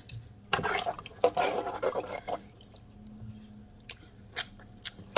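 Broth swirling and sloshing as spices are stirred into it in a pot with a metal measuring spoon, busiest in the first half, then a few light clicks of the spoon as it scoops some up.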